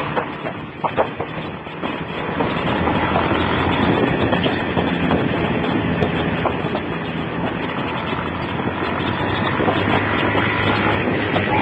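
Motorcycle engine running under way with wind rushing over a phone's microphone, the sound cut off at the top by the phone's narrow recording range. A few sharp knocks come in the first two seconds, then the rush grows louder and holds steady, with the engine's note low beneath it.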